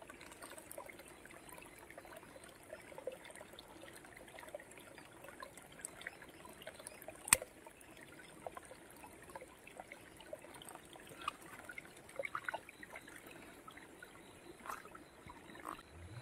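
Hands digging and squeezing through wet mud: faint wet squelching with many small clicks, and one sharper click about seven seconds in.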